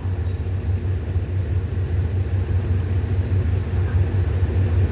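Steady low diesel rumble from trains in the station, with no distinct event.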